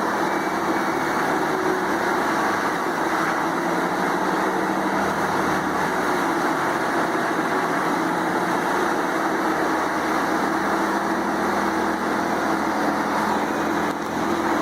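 Morbark drum wood chipper running steadily at working speed, a constant engine and rotor drone with no change in pitch.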